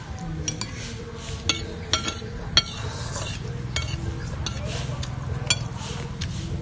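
Spoons clinking and scraping against bowls as soup is eaten, with sharp clinks scattered through and the loudest about two and a half seconds in, over a low steady hum.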